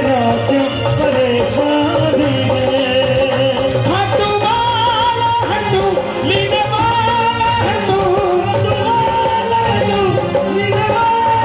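Live Hindu devotional bhajan: a man singing long, wavering held notes over the band, with a steady percussion beat.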